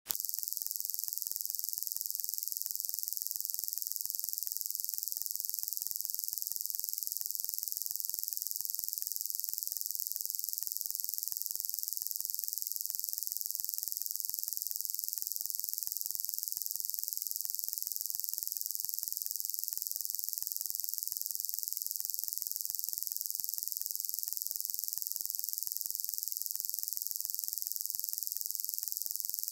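Steady high-pitched hiss, even and unchanging, with no other sound.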